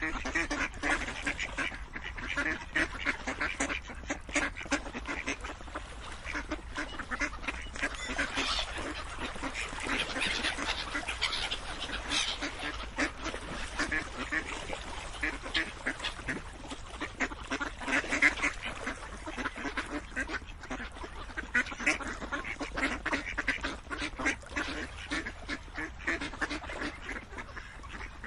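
A flock of ducks quacking, many calls overlapping in a steady, unbroken chatter.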